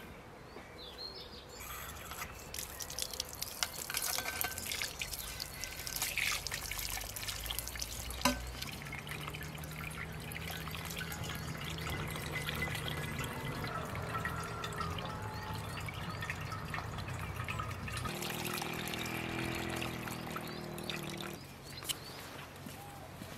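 Water from an outdoor brass tap pouring into a clay jug as it fills, a steady splashing stream. A hollow tone from the jug comes in after a sharp click and jumps higher in pitch as the jug nears full. The stream stops shortly before the end.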